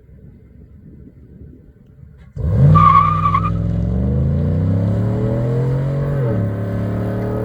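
V8 car with a muffler-deleted exhaust accelerating hard: after a low rumble it bursts in loud about two seconds in, with a short high squeal at the launch, the engine note climbing steadily, dipping briefly about six seconds in as it shifts up, then climbing again.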